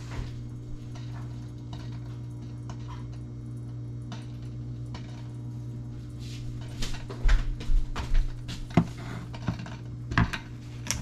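Scattered knocks and clatter of cookware and utensils being handled, busier and louder in the second half, over a steady low hum.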